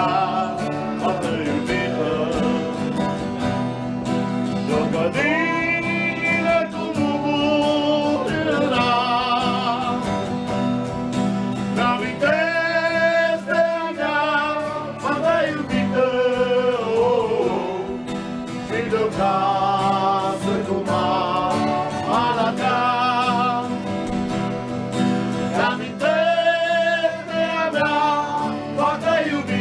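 Music: a song sung with vibrato over guitar accompaniment.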